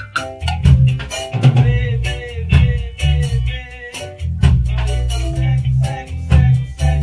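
Full band playing: drum kit keeping a steady beat over bass guitar and guitar, with a wavering melodic line held with vibrato in the middle of the passage.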